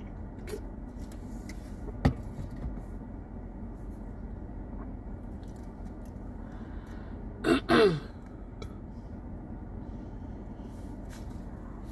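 A woman clearing her throat in two short bursts a little after halfway, over the steady blowing of a car's air conditioning. A single sharp click comes about two seconds in.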